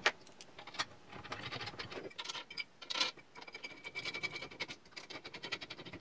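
Small metal clicks, ticks and scraping as an Allen key is turned in screws fastening aluminium extrusion parts from below. A sharp click comes right at the start, and sharper clicks follow about a second in and halfway through.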